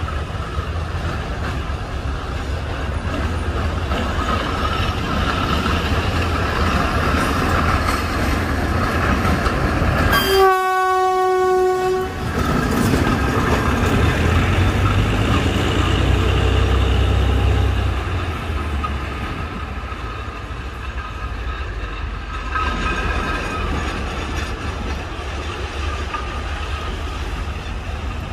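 Davenport diesel locomotive, re-engined with a Cummins KT38 diesel, running with a steady low engine rumble as it approaches and passes close by. About ten seconds in it gives one horn blast of about a second and a half.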